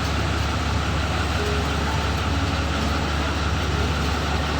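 An engine running at a steady speed, giving a constant low hum with no change in revs.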